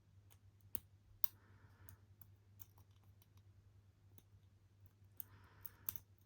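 Lock pick working inside the keyway of a brass pin-tumbler padlock: irregular small clicks and ticks, with two short scratchy scrapes as the pick is worked around the bent keyway.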